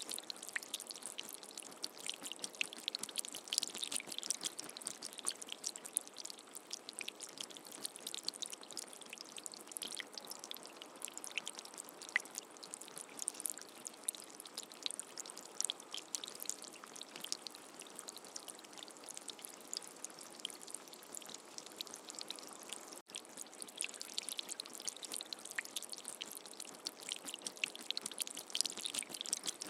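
Rain falling steadily, a dense patter of many small drops, with a momentary break about two-thirds of the way through.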